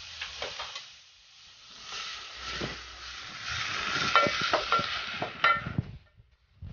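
Diced carrots and bell peppers sizzling in hot oil in a stainless steel pot, stirred with a wooden spoon that scrapes and knocks against the pot. It cuts off suddenly near the end.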